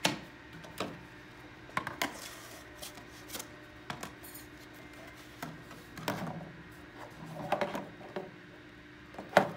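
Hard plastic parts knocking and clicking as a polypropylene vent pipe, its wall plates and the termination housing are fitted together by hand, with the housing set down on a wooden bench. The sound comes as scattered separate knocks a second or two apart.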